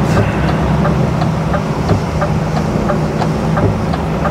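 Mercedes Actros lorry engine running steadily in the cab as it pulls away, with a regular light ticking about three times a second.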